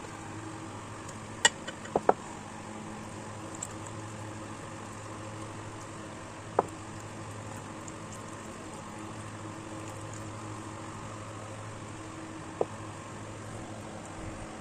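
Steady low hum and hiss of room noise, broken by a few sharp taps, about five in all, from a silicone basting brush and a raw chicken knocking against a glass baking dish while sauce is brushed on.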